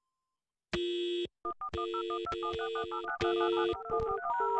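Telephone tones: after near silence, a dial tone comes in about a second in and is broken off and resumed several times. Over it, rapid touch-tone (DTMF) dialing beeps, several a second, work through number after number, the automatic dialing of a war dialer.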